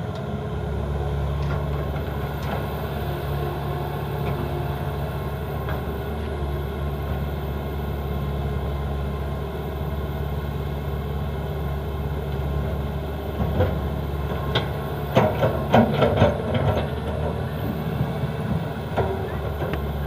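Excavator's diesel engine running steadily, with a burst of clanks and knocks about two-thirds of the way in and one more near the end.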